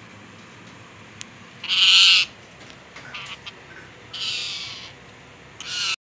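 A parrot screeching: three harsh, loud calls, one about two seconds in, a longer one past the four-second mark and a short one at the end.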